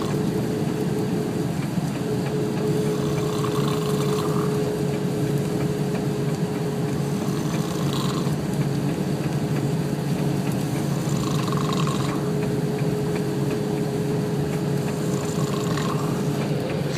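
A person snoring, one breath about every four seconds, over the steady drone of a car in motion.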